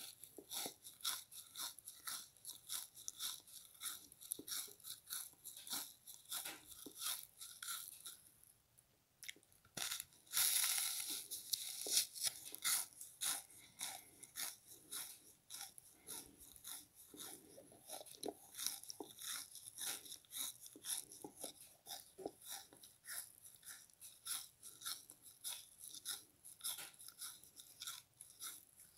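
Close-up crunching and chewing of a frozen pink bath sponge: a quick, continuous run of crisp crunches. They pause briefly about eight seconds in, then come back with a louder burst of crunching.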